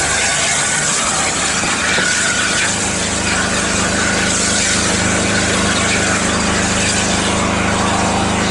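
Running noise of a moving train heard from an open carriage window: a dense, even rushing of wind and wheels on the rails. A steady low hum sets in about two and a half seconds in.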